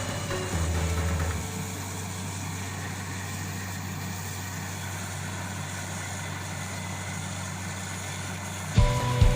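Heavy engine idling with a steady low hum. Near the end, a run of regular loud thumps begins.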